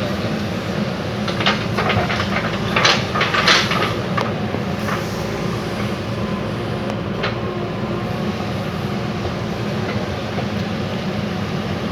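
JCB backhoe loader's diesel engine running steadily, with sharp metallic clanks and knocks from the working machine, several in the first few seconds and one more about seven seconds in.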